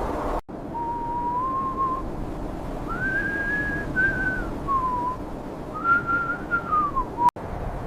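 A whistled call of pure, smooth notes: a rising note near 1 kHz, then a higher held note that falls away, then another high note sliding down, over a steady background hiss. The sound is cut in and out abruptly.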